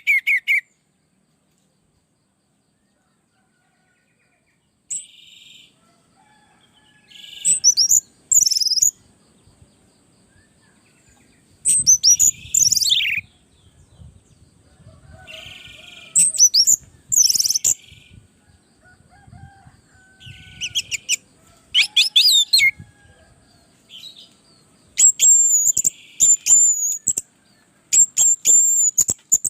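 Orange-headed thrush song: loud phrases of rapid whistled and chattering notes, some sweeping downward, each a second or two long and separated by pauses of a few seconds. About five seconds of near silence come before the first phrase, and a quick run of short repeated high notes comes near the end.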